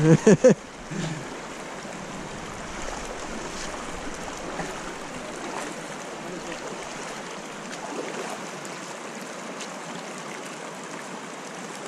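Shallow river running over stones and riffles: a steady rush of water. A brief loud burst comes right at the start.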